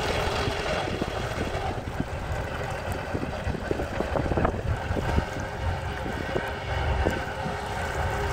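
Gusty wind buffeting the microphone in an irregular low rumble, over choppy water lapping at the boat's hull and the dock.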